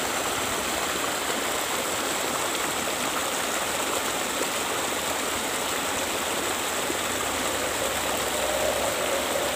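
Small rocky river rushing over stones in shallow rapids: a steady rush of running water.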